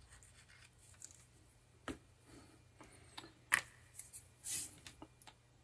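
Faint scattered clicks and taps of a small metal potentiometer being handled and set down on a cutting mat, with a sharp click about two seconds in and the loudest tap about three and a half seconds in, plus brief rustling.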